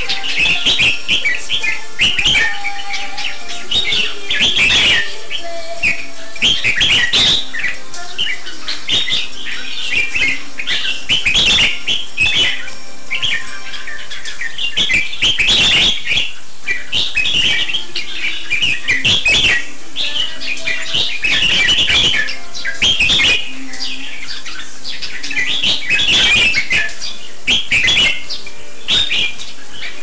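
Red-whiskered bulbul singing its short, chirpy phrases over and over as an aggressive challenge to a rival bird in the next cage. Frequent sharp knocks are heard between the phrases.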